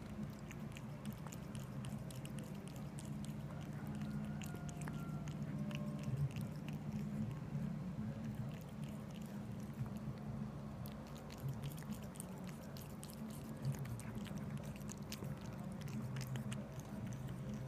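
A cat lapping milk from a bowl: a run of small, quick wet clicks from its tongue, thickening over the second half, over a steady low hum.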